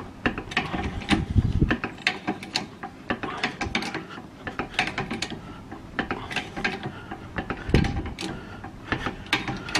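Trolley jack being pumped under load as it lifts the front of a car, its mechanism giving repeated metallic clicks and clacks.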